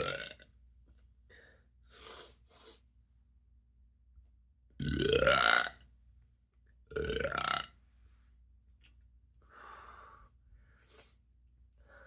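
Burps from gas that ginger ale has left trapped in the stomach. One trails off at the start, then a long loud one comes about five seconds in, rising in pitch, and another about two seconds later, with softer short sounds between.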